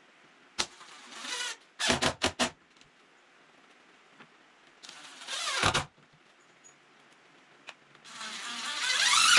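Cordless drill driving screws into a wooden post, in several bursts: a short run about a second in, a few quick trigger pulses around two seconds, a longer run near the middle, and the longest, loudest run near the end.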